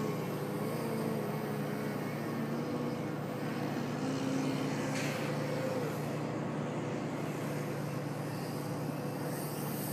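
Electric motor and 13x7 propeller of a 48-inch Extreme Flight Laser RC aerobatic plane droning, the pitch shifting up and down as the throttle changes.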